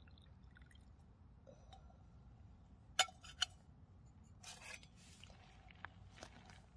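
Metal camp cookware being handled and set down on an aluminium camp table: two sharp clinks about half a second apart, then a brief rustle and a few lighter taps.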